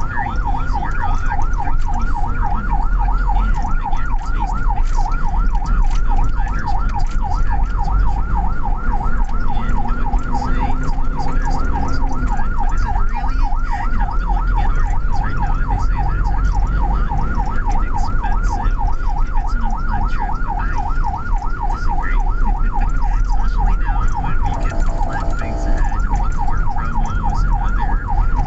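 Ambulance siren on a fast yelp, a quick rising-and-falling wail repeating about four times a second, heard from inside the ambulance over engine and road rumble. Near the end it switches briefly to a different, steadier tone.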